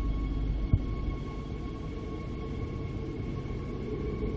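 Queensland Rail electric multiple-unit train pulling out of the station: low rumble of wheels on the rails under a steady high whine. One sharp click comes under a second in.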